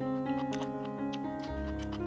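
Background music: sustained chords that change every second or so, with light ticking clicks over them.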